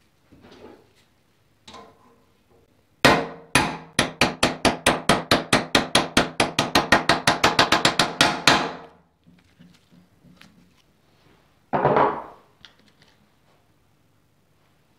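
A hammer striking a socket used as a drift, driving a new steering-head bearing race into a motorcycle frame: two single blows, then a fast, even run of ringing metal-on-metal taps, about five a second, for roughly five seconds. A short clatter follows near the end.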